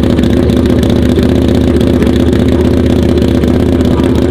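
Dirt bike engine running steadily, loud and even, with no change in pitch.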